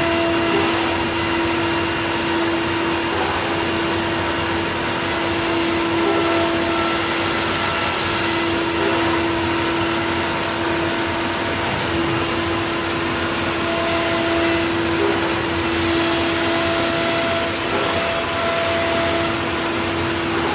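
C.R. Onsrud CNC router running: a steady hum with one held tone under a constant, loud rushing noise, even throughout.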